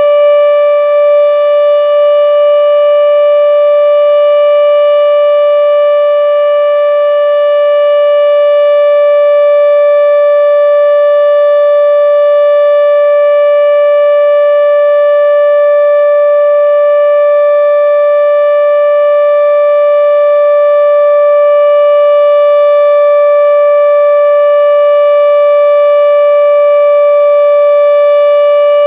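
Federal Signal RSH-10B outdoor warning siren sounding a test, holding one loud, steady pitch throughout, heard from directly beneath the siren.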